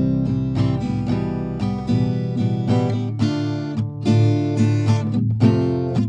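Background music: acoustic guitar picking a melody, with several plucked notes a second.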